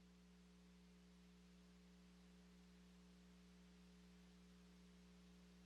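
Near silence: only a faint steady electrical hum on the broadcast feed.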